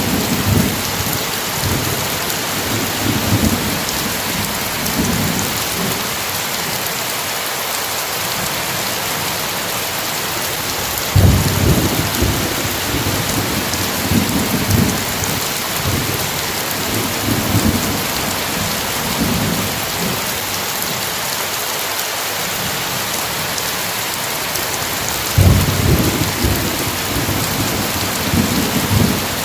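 Heavy steady rain hissing, with rolls of thunder rumbling through it. A sharper thunderclap breaks about eleven seconds in and another near the end, each rumbling on for several seconds.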